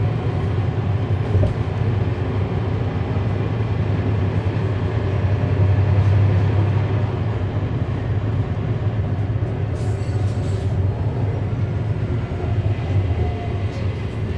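Cummins ISL9 inline-six diesel engine of a NABI 40-SFW transit bus, heard from on board, running steadily as the bus drives with a deep rumble. It grows louder about six seconds in, then eases back.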